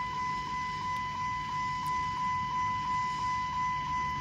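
Steady high-pitched electronic warning tone that pulses about three times a second, over a faint low rumble.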